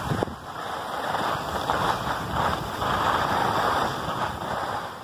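Skis sliding and scraping over packed snow, with wind rushing over the microphone. The scraping swells louder through the middle and eases off near the end.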